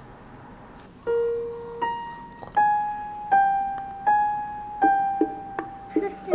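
Background music: a slow melody of single struck keyboard notes, starting about a second in, with a new note roughly every three-quarters of a second.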